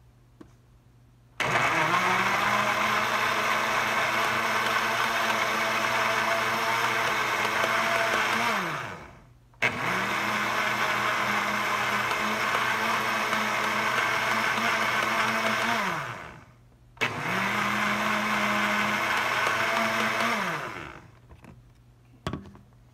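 Countertop blender motor run three times, for about seven, six and four seconds. Each run is a steady whine that winds down in pitch when the button is released.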